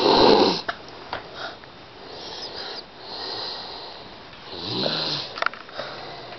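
Snoring: a loud rattling snore at the start, softer breaths in between, and another snore about five seconds in, followed by a couple of small clicks.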